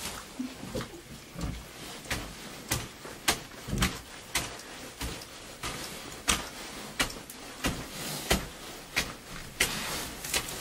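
Wild boars rooting and feeding in loose soil: a run of sharp clicks and knocks, about one or two a second.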